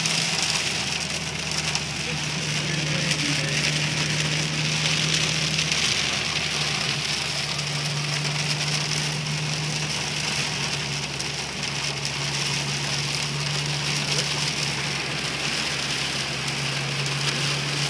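Heavy downpour of rain, a steady dense hiss of drops hitting surfaces, with a low steady hum underneath that drops out briefly now and then.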